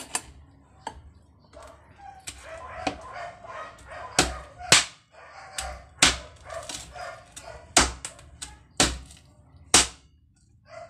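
Knife chopping through roasted pork head on a hard surface: softer knocks at first, then six heavy, sharp chops about a second apart in the second half.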